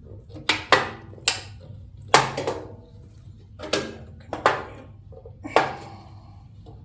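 A string of sharp, irregular knocks and clanks, about nine in all, from metal parts and tools being handled and struck while the chute is fitted.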